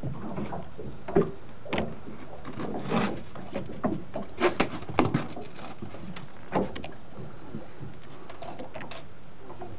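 Irregular knocks and clunks on a boat deck, a cluster of them in the middle, over steady background noise.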